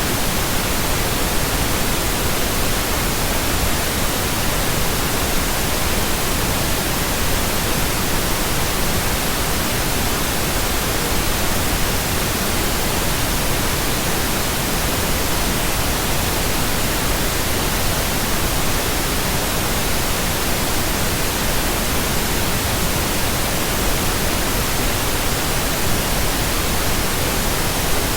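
Steady computer-generated pink noise: an even, unchanging hiss spread across the whole range from deep rumble to high treble, with no tones or breaks.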